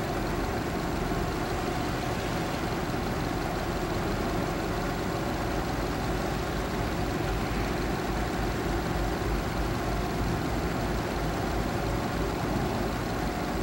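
Diesel engines of a slow-moving railroad work train running steadily at low power, a constant hum with no change in pitch.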